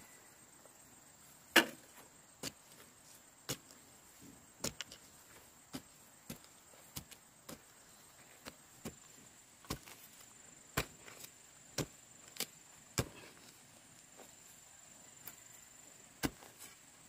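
A string of irregular sharp knocks or taps, about one or two a second, the loudest about one and a half seconds in, over a steady high-pitched tone.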